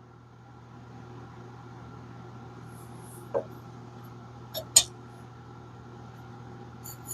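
Steady low mechanical hum, with a few light clicks and taps: one about three seconds in, two close together just before five seconds, and one near the end.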